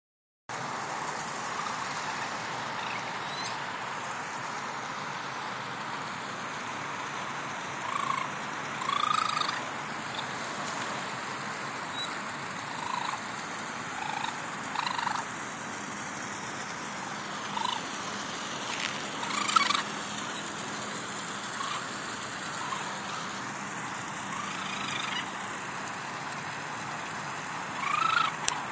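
Juvenile raccoon separated from its family, giving short, high-pitched distress cries at irregular intervals, about a dozen, some in quick pairs, over a steady background hiss.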